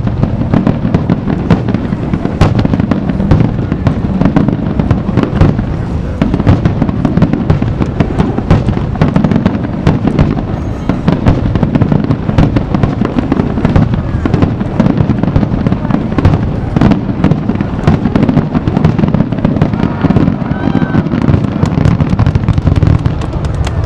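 Finale barrage of aerial fireworks: rapid, overlapping booms that merge into a continuous low rumble, with many sharp cracks and crackles on top.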